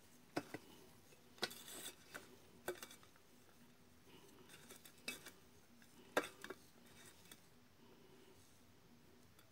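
Fingers crumbling fried mackerel tuna meat over an enamel plate: faint crumbling with a few scattered sharp clicks against the plate, the loudest about six seconds in.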